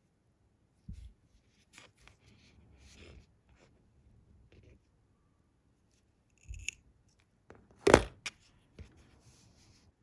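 Fujiya side cutters snipping the tag end of a braided fishing line: one sharp snip about eight seconds in, the loudest sound, with softer clicks and line-handling rustle before it.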